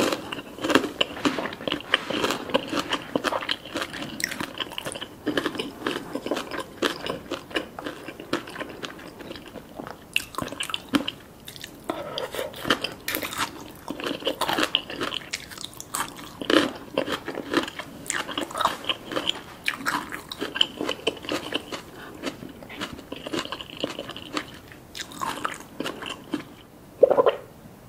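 Close-miked chewing and crunching of spicy papaya salad with crispy chili chips and chicken skin: a steady run of small crisp crunches. There is one louder thump near the end.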